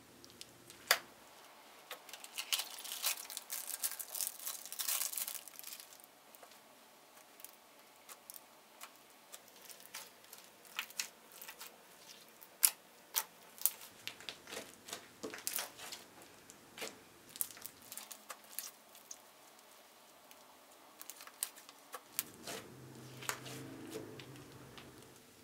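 Sticky slime being stretched and kneaded by hand: wet clicks, crackles and squelches, densest a couple of seconds in, then scattered, and thickening again near the end.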